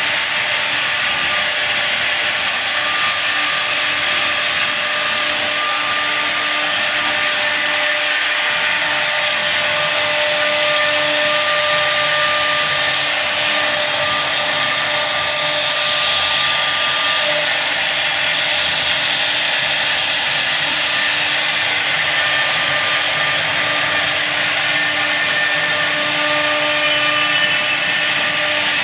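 CNC router spindle running steadily as it cuts a design into wood: a continuous high whine over a dense hiss of cutting.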